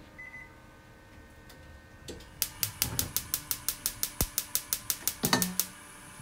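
Gas hob burner's spark igniter clicking rapidly and evenly, about seven clicks a second for about three seconds, then stopping.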